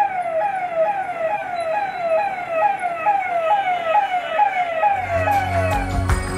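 Ambulance siren, an electronic sweep that jumps up and slides back down about twice a second, repeating steadily and fading out near the end.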